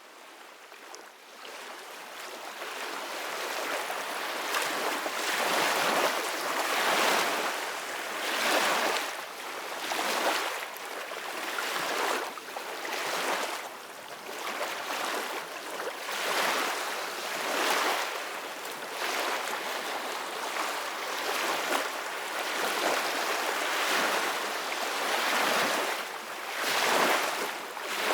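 Soft ocean waves washing in, a steady surf hiss swelling and easing about every two seconds; it fades in over the first few seconds.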